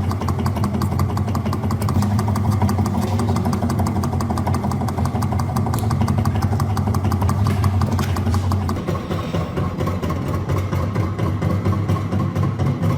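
Restored antique oil-powered fan running: a steady mechanical hum with fast, even clattering ticks. Its low hum thins out about nine seconds in.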